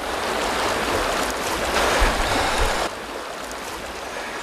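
Steady rushing of a flowing river, with a low rumble about two seconds in; the rushing drops in level about three seconds in.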